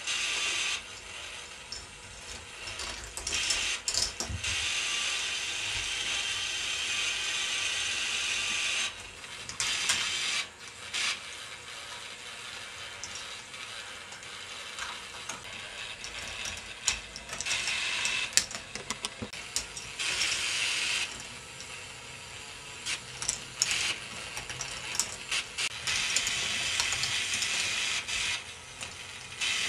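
Motor-driven plastic K'NEX ball machine running: gears and lift mechanism clicking and rattling like a ratchet. Louder rattling stretches of a few seconds come and go, with scattered sharp clacks, as balls are carried up the lifts and roll along the plastic tracks.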